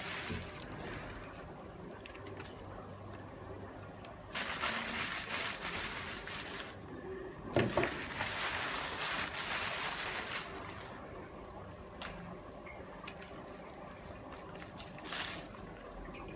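Plastic bag rustling and crinkling in several bursts as a hand digs into a bag of bonsai soil, with a sharp bump about halfway through.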